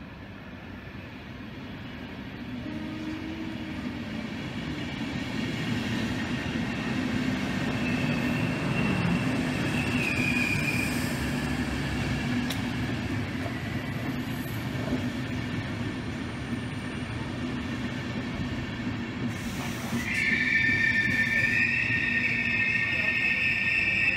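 Intercity passenger coaches rolling into a station platform, their running rumble growing louder as they draw alongside. About twenty seconds in, a loud, sustained high squeal sets in as the train slows.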